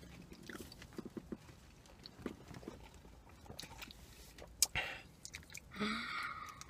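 Close-up mouth sounds of eating leafy salad: soft biting and chewing with small wet clicks. There is one sharp click about four and a half seconds in and a short louder noisy mouth sound near the end.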